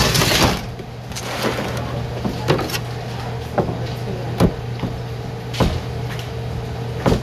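Chef's knife chopping mushrooms on a plastic cutting board: separate sharp knocks, roughly one a second and unevenly spaced, over a steady low hum.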